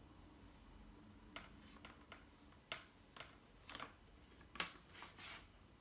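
Plastic parts being handled: a string of light clicks and taps, with a few short scrapes, from about a second and a half in until near the end.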